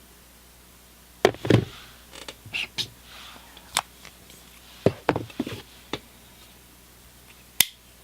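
Two stainless-steel multi-tools being handled: a scattered series of sharp clicks and knocks, with one sharp click near the end.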